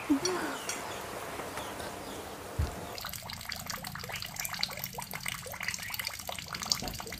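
Rain falling: a soft steady hiss at first, then from about three seconds in a dense rapid ticking of individual drops. A single dull thump comes just before the drops thicken.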